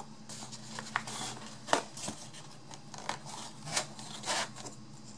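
Small craft materials being handled on a work surface: a series of sharp clicks and short rustling scrapes, the loudest click a little under two seconds in.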